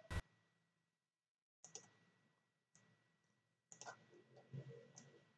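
Computer mouse clicks over near silence: one sharp click right at the start, then a few faint ticks.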